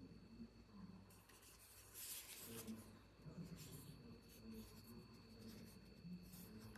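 Near silence with faint scratchy rubbing, strongest in a brief patch about two seconds in, over a faint steady high whine.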